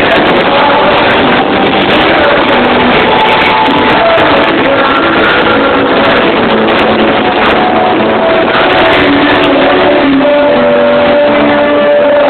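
Loud live band music captured on a phone microphone, dense and dull-topped, with a long held note coming in near the end.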